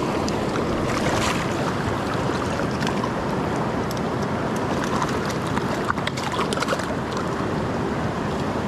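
Mountain creek water rushing steadily over rocks, with a few faint splashes and clicks.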